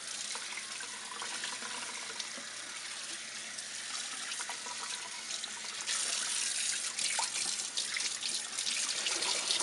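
Water spraying from a kitchen faucet's pull-out spray hose onto a wet puppy's fur and splashing into the sink, a steady hiss that gets louder about six seconds in.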